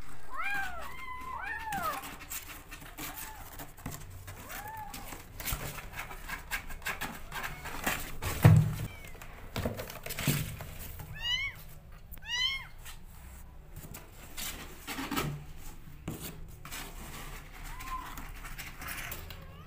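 Young kittens mewing: a cluster of short rising-and-falling mews at the start, fainter mews after, and two quick high, squeaky calls around the middle. Clicks and knocks from the kittens moving about in a cardboard box run throughout, with one loud thump a little past eight seconds.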